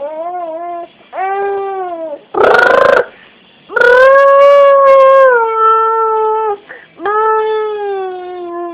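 A toddler's drawn-out vocal calls, four long steady tones, the middle one about three seconds long, made as the pretend noise of a hair dryer being switched on. A short breathy, hissing blast comes between the second and third call.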